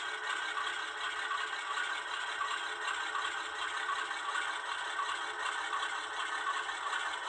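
HO scale model diesel locomotive and loaded gondolas running slowly on track: a steady mechanical whir and rattle from the small motor and the wheels on the rails, with no deep bass.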